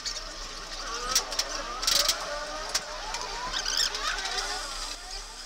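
A few sharp metallic knocks, about a second and two seconds in, from a brass bush being reclamped in a lathe chuck. Behind them runs a steady background of engine noise with wavering, gliding tones.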